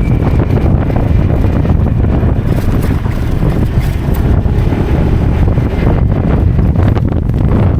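Motorcycle riding along a road: steady engine and road rumble with wind buffeting the microphone.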